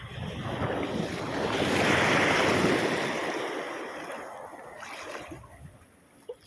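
Sea wave surging in and washing around, a rushing noise that builds to its loudest about two seconds in and then slowly dies away.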